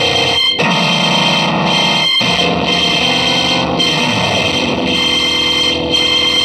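Live experimental electronic noise music: a dense, heavily distorted, effects-processed wash with a few held high tones, cutting out for an instant about half a second in and again about two seconds in.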